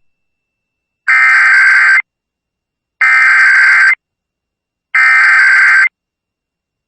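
Emergency Alert System SAME digital header: three identical bursts of data tones, each just under a second long with about a second of silence between them, opening an EAS Required Monthly Test broadcast over FM radio.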